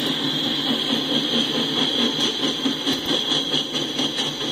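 Coal train's hopper cars rolling past: a steady rumble and rattle of wheels on the rails, with faint clicks from about two seconds in.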